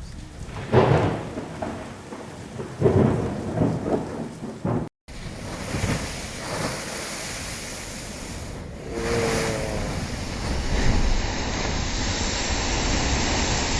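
Stormy sea: waves surging onto the shore with heavy wind noise, three big crashes in the first few seconds, then a steady churning roar after a cut.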